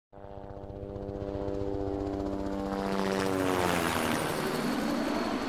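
Propeller airplane flying past: a pulsing engine drone that fades in, grows louder, and drops in pitch as it goes by, about three to four seconds in.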